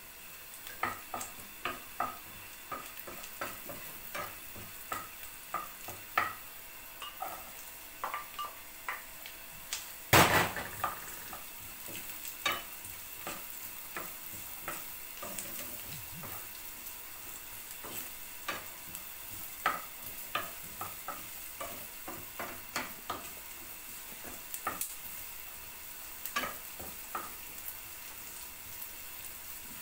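Diced onion sizzling in oil in a non-stick frying pan, with a wooden spoon stirring and knocking against the pan in short clicks. About ten seconds in comes a loud burst of sizzling as diced carrots go into the hot pan, and then steady sizzling and stirring.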